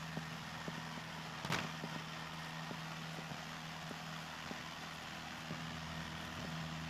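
Piper Warrior's four-cylinder Lycoming engine running steadily, heard from inside the cabin during the take-off roll, with one brief click about a second and a half in.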